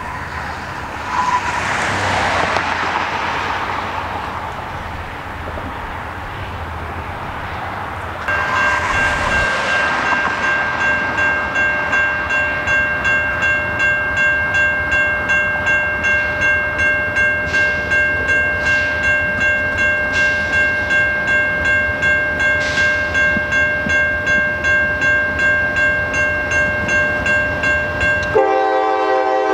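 A rushing noise for the first several seconds gives way to a railroad crossing's warning bell, ringing steadily about twice a second as a freight train approaches. Near the end a CSX diesel locomotive's horn starts blowing a loud chord.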